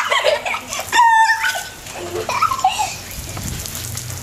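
Children's high-pitched squeals and shouts, in short sliding cries that are loudest in the first second and a half.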